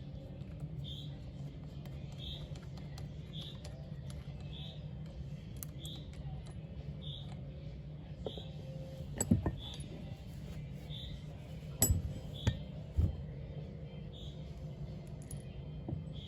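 A few sharp metal knocks and clinks, one about nine seconds in and three close together near the end, over a steady low hum, with a faint high chirp repeating about once a second.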